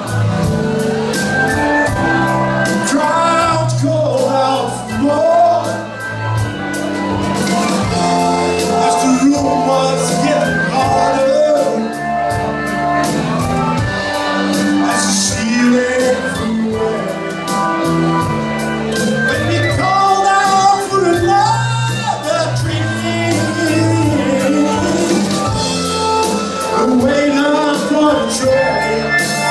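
Live rock band playing a 1970s medley: electric guitar and bass guitar over a steady beat, with a man singing.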